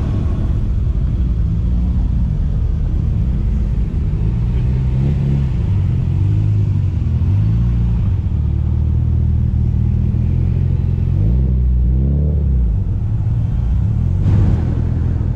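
Modified cars' engines and exhausts rumbling as they drive slowly past in a line, the engine note rising and falling a few times as they pull on.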